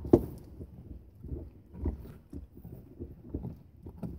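A Carolina Dog gnawing and tearing at a raw venison shoulder blade, meat, sinew and bone: irregular wet chewing and crunching, with a sharp crunch just after the start.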